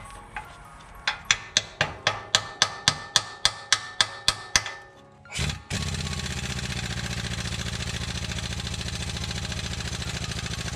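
A hammer tapping a 13 mm impact socket onto a stripping exhaust nut, about fourteen quick strikes at roughly four a second. Then a half-inch pneumatic impact wrench hammers steadily for about five seconds, trying to break the nut loose.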